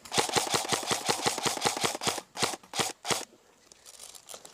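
Airsoft rifle firing a rapid automatic burst of sharp cracks for about two seconds, with a steady whine under the shots. Three louder single shots follow, and it stops a little over three seconds in, as covering fire.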